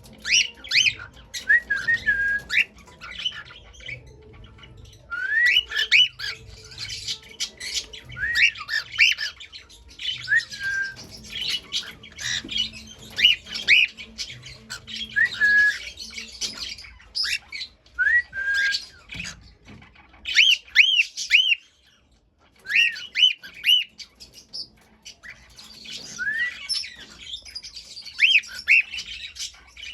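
Cockatiels chirping and calling: bouts of short, shrill rising calls and squawky chirps repeated every second or so, with a brief pause partway through.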